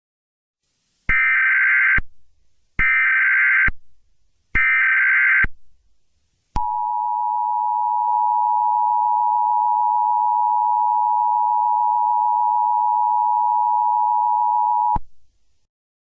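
Emergency Alert System tones: three short bursts of harsh, buzzing data tones, each under a second long, then the two-tone EAS attention signal, a steady electronic two-note tone held for about eight seconds before it cuts off abruptly.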